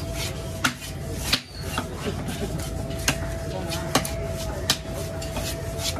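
Knife chopping into a yellowfin tuna: about five sharp, irregular chopping knocks over a steady low hum.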